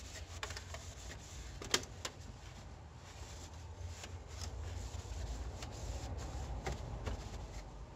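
Hands working inside an HP LaserJet printer's open paper-feed area around the pickup roller: scattered light plastic clicks and soft rubbing and rustling, with one sharper click about 1.7 seconds in.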